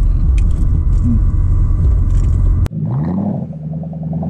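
Low rumble of a car on the move, which cuts off abruptly about two and a half seconds in; then an engine revs up and holds a steady higher pitch.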